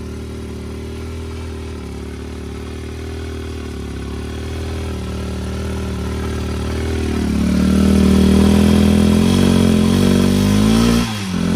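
Fuel-injected motorcycle engine running again after a new spark plug was fitted, idling steadily and then revved up about seven seconds in. Near the end the revs drop sharply and pick up again in quick throttle blips.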